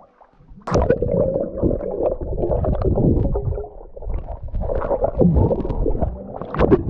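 Camera microphone plunged into river water: a sudden onset about a second in of muffled underwater rumbling and gurgling, with splashing as it moves at and below the surface.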